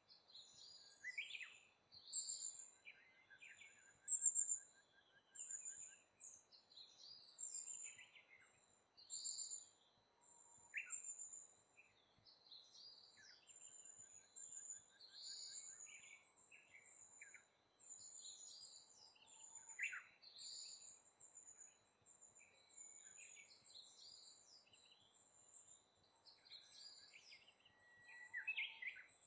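Small songbirds calling: a busy run of high, thin chirps and short calls, several overlapping, with brief pauses between bouts.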